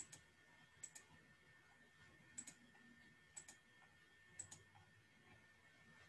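Faint computer mouse clicks, five in all and mostly in quick double-click pairs, about one a second, over a faint steady high-pitched whine.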